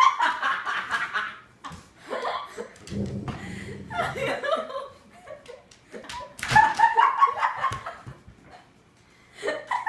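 People laughing in several bursts, the loudest about seven seconds in, with a little indistinct talk mixed in.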